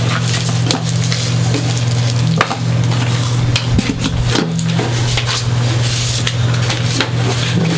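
Small hard parts being handled on a workbench: irregular clicks and rattles over a steady low hum.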